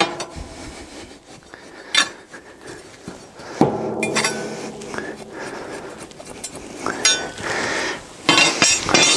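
Stone-wool insulation being stuffed and pressed down into the gap around a metal loft ladder frame: rustling and scraping with a few sharp knocks and metallic clinks, one about three and a half seconds in followed by a brief ring.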